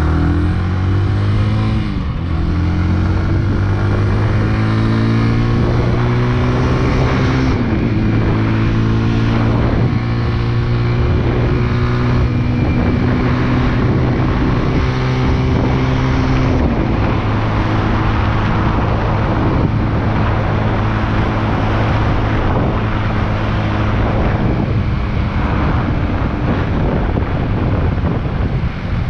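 Big Boy SuperLight 200cc motorcycle engine pulling away and accelerating through the gears. Its pitch climbs, then drops at shifts about two and seven seconds in, and once more around the middle, before it settles to a steady cruise.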